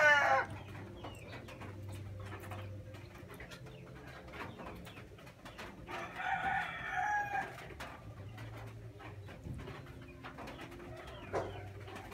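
A rooster crowing: the loud end of one crow in the first half-second, then a fainter crow about six seconds in that lasts about a second and a half. Faint clicks of a fork against a bowl in between.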